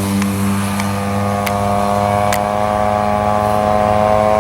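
Two-stroke 50cc gas engine of a large radio-controlled model airplane running at a steady throttle, its pitch holding level and creeping slightly higher near the end. A couple of faint sharp clicks sound about one and a half and two and a half seconds in.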